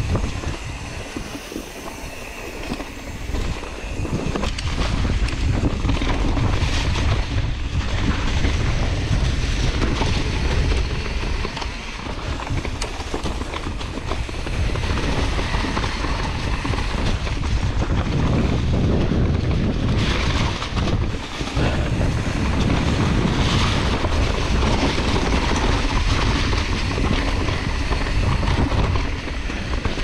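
Mountain bike descending a dry, leaf-covered dirt trail: tyres rolling over leaves and rough ground, with the bike rattling and clattering over the bumps. Wind buffets the bike-mounted camera's microphone.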